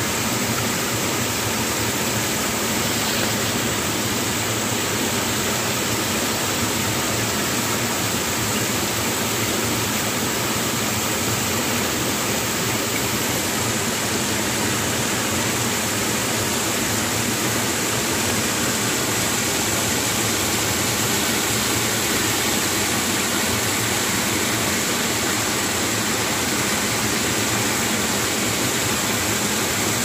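Steady rushing of a waterfall pouring over a stone wall onto rocks, unchanging throughout.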